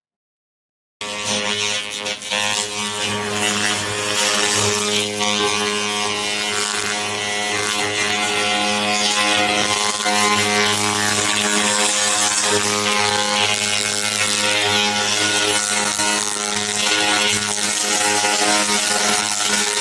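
3000 W continuous fiber laser cleaning machine blasting paint and rust off a steel tool. It starts about a second in: a steady buzzing hum under a crackling hiss.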